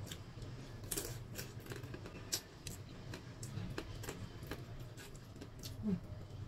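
Cooked prawns being peeled by hand, their shells cracking and pulling apart in scattered small crackles and clicks, mixed with close-up eating sounds. A faint steady low hum lies underneath.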